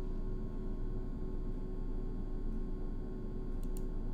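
Steady low electrical hum and hiss of the recording's background, with two faint clicks close together about three and a half seconds in.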